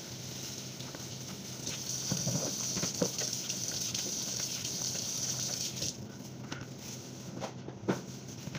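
Kitchen tap running into the sink while dishes and a plastic colander are rinsed under it, with a few light knocks and clatters. The running water stops about six seconds in.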